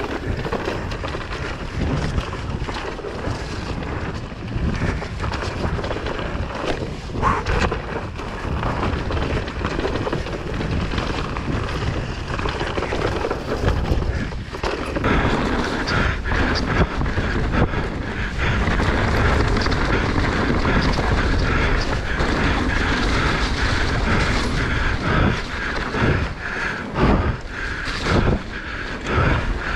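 Wind buffeting an action camera's microphone while an electric mountain bike is ridden over a wet, muddy trail, with a steady rumble and frequent knocks and rattles from the bike.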